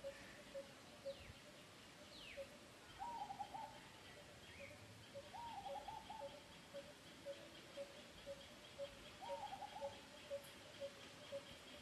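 Faint birdsong: one bird repeats a short, even note about twice a second throughout, while another gives three short warbled phrases and there are a couple of quick falling whistles near the start.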